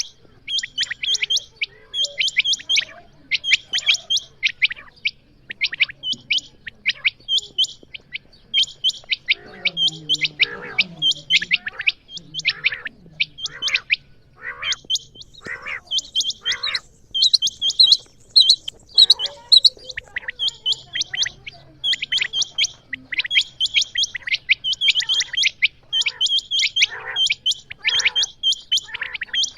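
Female common quail (Coturnix coturnix) calling: quick series of short, sharp high chirps in clusters, repeating without a break.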